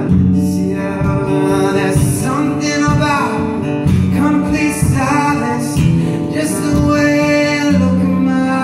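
Acoustic guitar strummed in a steady rhythm while a man sings into a microphone, a live solo performance.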